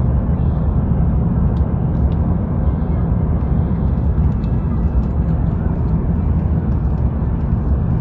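Steady low rumble inside the cabin of an Airbus A350-900 descending in flight: its Rolls-Royce Trent XWB engines and the rush of air over the fuselage, heard from a window seat by the wing.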